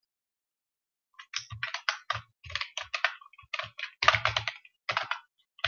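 Computer keyboard typing: quick irregular runs of key clicks, starting about a second in.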